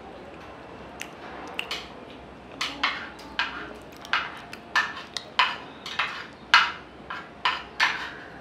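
Close-miked eating sounds: a run of sharp clicks, about two a second, starting sparse and becoming regular and louder after a couple of seconds.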